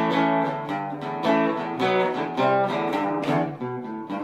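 Guitar music, acoustic-sounding, with plucked notes picked in a steady run.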